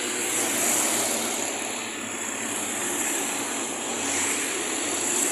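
Steady rushing street noise of vehicles going by, without any distinct engine note or horn.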